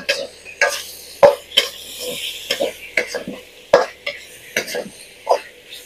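Metal ladle scraping and knocking against a wok as diced duck meat and skin are stir-fried dry with garlic and lemongrass, in irregular strokes about two a second over a faint sizzle.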